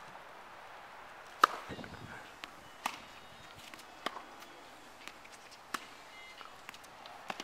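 Tennis balls struck with rackets and bouncing on a hard court during a serve and rally: a sharp, loud serve strike about a second and a half in, then a string of hits and bounces roughly a second apart.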